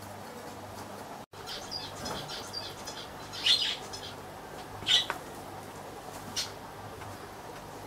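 A small bird chirping a few short, high calls, loudest about three and a half and five seconds in, over a steady low hum.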